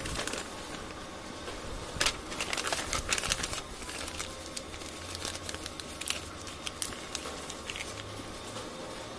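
Sheets of printer paper rustling and crinkling as they are flipped through and folded by hand, in irregular bursts of sharp crackles, busiest about two to three seconds in and again around six seconds.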